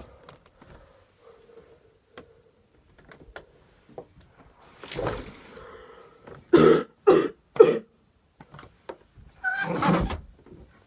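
A young man coughing deliberately and loudly: a sharp intake of breath, three short coughs in quick succession, then a longer cough near the end.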